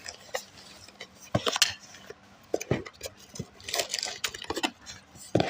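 Containers and small objects being taken out of a mini fridge and set down: irregular knocks and clinks in small clusters.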